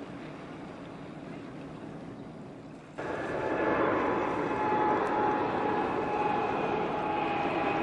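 A quiet rush of wind and water, then an abrupt cut about three seconds in to a louder engine drone with a steady whine over a rushing noise.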